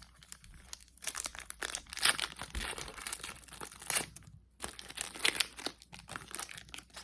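Pokémon trading card booster pack's foil wrapper being torn open and crinkled, in a run of irregular crackles.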